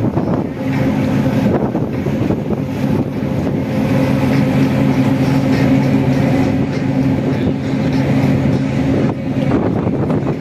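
Tour motor ship's diesel engine running steadily with a constant low hum, over a continuous rushing noise of wind and water.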